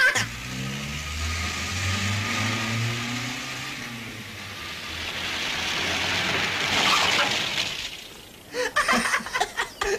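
Renault 12 car engine running as the car drives slowly up a driveway, with tyre hiss swelling as it draws near, loudest about seven seconds in, then fading. A run of short repeated sounds follows near the end.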